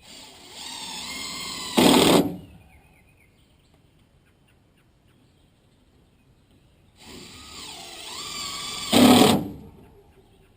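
Power drill/driver driving a screw, twice. Each run's motor pitch rises and ends in a louder burst as the screw seats.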